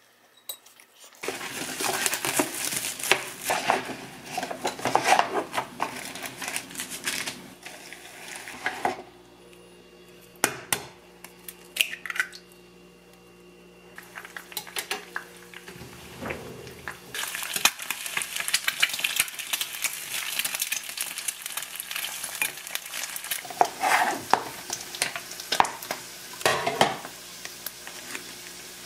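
Food sizzling in a frying pan, in two long stretches, with sharp clinks and knocks of utensils on pans and dishes in the quieter stretch between.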